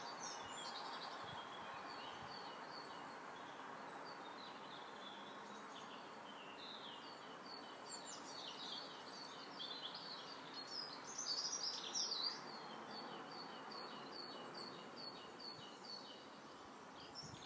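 Small birds singing and chirping outdoors, many short high calls, busiest and loudest a little past the middle, over a faint steady rush of background noise.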